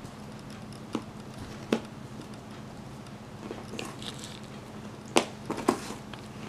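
Cardboard jigsaw pieces tapped and pressed into a puzzle tray: two sharp clicks in the first two seconds, then three close together near the end, over a steady low hum.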